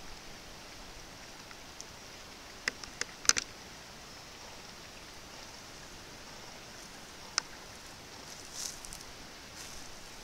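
Quiet forest ambience: a steady faint hiss. A few sharp snaps come close together about three seconds in, and one more comes past seven seconds.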